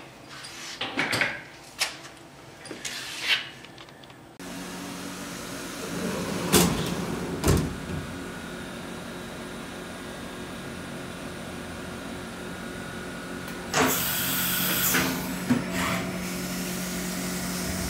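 A few short clicks and knocks of work at a CNC lathe chuck. Then a Brother vertical machining centre runs with a steady hum while cross-drilling with a 7/8-inch drill, with two sharp knocks. About 14 seconds in a loud hiss of coolant spray sets in.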